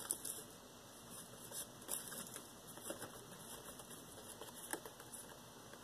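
Tarot cards being handled and flicked through, giving faint, irregular soft ticks and rustles.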